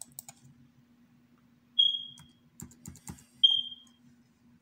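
Scattered computer keyboard and mouse clicks, a quick run of key presses in the middle, with two short high-pitched beeps about a second and a half apart that are louder than the clicks and fade out quickly.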